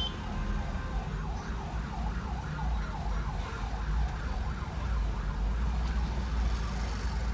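Low rumble of the car and surrounding traffic heard from inside the cabin, with an electronic siren warbling fast, rising and falling about three or four times a second, from about a second in until about four seconds.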